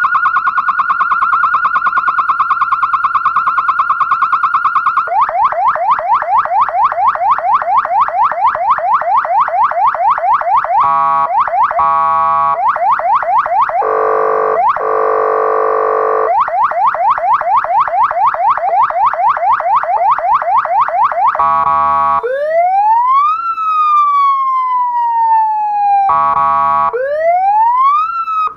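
Electronic siren amplifier sounding through a horn speaker, switched from tone to tone every few seconds: a very fast warble, then a rapid yelp of repeated rising sweeps, a hi-lo two-tone, and a slow wail that rises and falls. It cuts off abruptly at the end.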